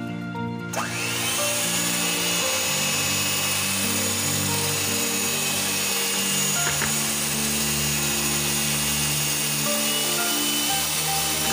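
Panasonic electric hand mixer switched on about a second in, rising in pitch as it comes up to speed, then running steadily as its beaters whisk all-purpose cream and condensed milk in a stainless steel bowl.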